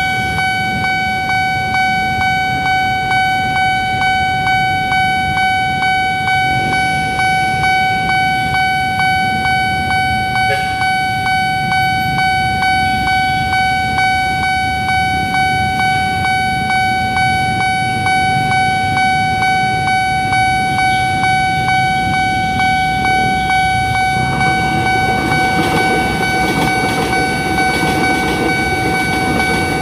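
Japanese-style electronic level-crossing alarm bell ringing in a steady, rapid, repeating rhythm, the warning that a train is coming. About 24 seconds in, a KRL electric commuter train's running noise builds under it as the train reaches and passes the crossing.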